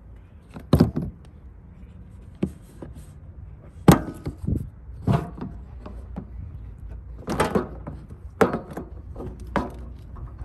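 Plastic latches of a Pelican hard case being snapped open and the lid handled: a series of sharp clicks and knocks.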